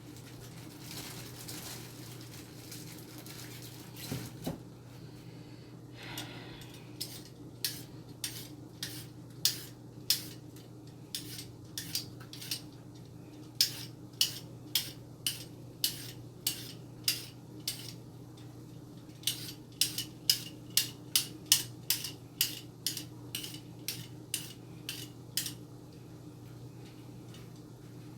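Kitchen knife chopping carrots on a cutting board: a long run of even, sharp chops about two a second, with a short break partway through.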